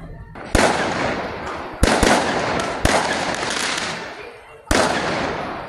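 Firecrackers going off: five loud, sharp bangs, two of them close together about two seconds in. Each bang trails a hiss that fades over about a second.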